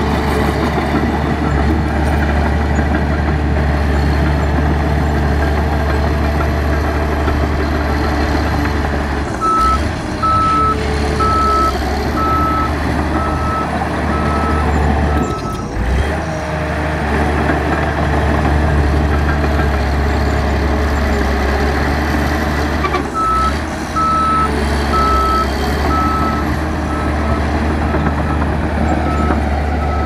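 Heavy earthmoving machine's diesel engine running steadily, with its reversing alarm beeping at an even pace in two spells of several seconds: the machine is backing up.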